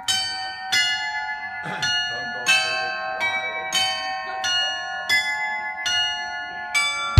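Tower clock glockenspiel chiming the hour: a slow tune struck note by note on tuned bells, about one stroke every two-thirds of a second, each bell ringing on under the next.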